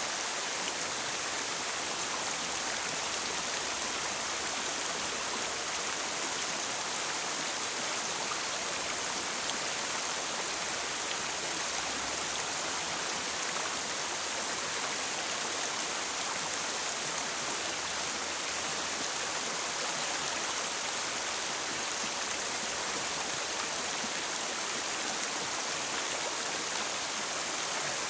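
River water flowing over rocks, a steady rushing splash with no breaks.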